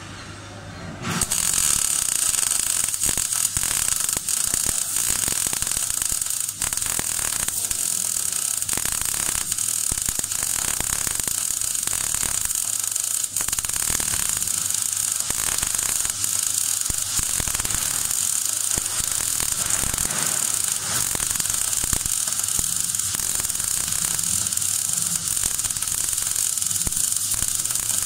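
MAG (GMAW) welding arc on steel plate, crackling and hissing steadily as a root pass is run; it strikes about a second in. The machine is set at 18 volts.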